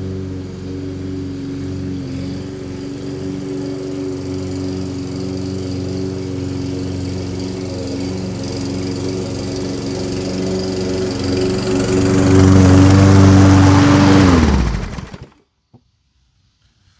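Toro Personal Pace Recycler walk-behind mower's petrol engine running steadily while cutting grass. It grows louder as it comes close about twelve seconds in, then is shut off, the pitch dropping as it winds down to silence about fifteen seconds in.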